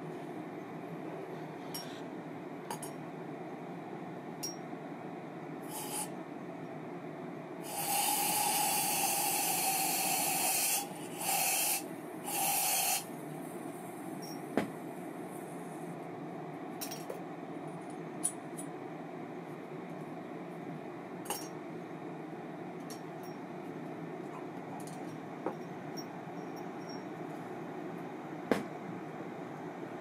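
Light clicks and clinks of small parts being handled during work on a baitcasting reel. About eight seconds in, a loud spray hiss lasts about three seconds, then comes twice more in short bursts.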